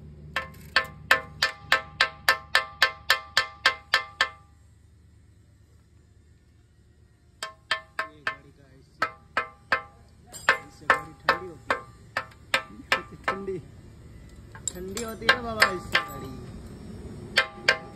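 Metal struck repeatedly, each strike ringing. A steady run of about three strikes a second for four seconds, then a pause, then more irregular runs of strikes.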